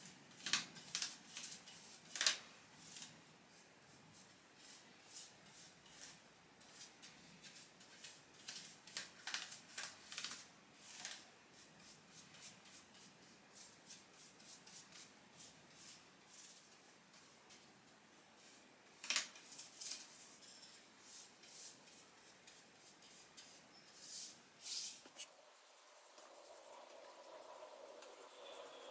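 A paintbrush swishing varnish onto a wooden chair: faint, irregular bristle strokes scratching over the wood, a few of them louder. Near the end the strokes stop and only a faint steady hum remains.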